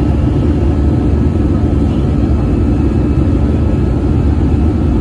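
Steady low roar of an Airbus A320-200's jet engines and rushing air, heard from inside the passenger cabin in flight.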